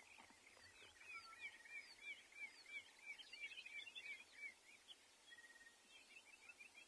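Faint small birds calling: many quick, high, hooked chirps packed together for the first few seconds, thinning out after about four and a half seconds, with a brief flat high note near the end.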